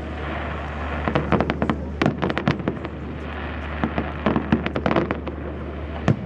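Fireworks going off in a display: dense clusters of sharp crackling pops, with a hissing wash between the clusters.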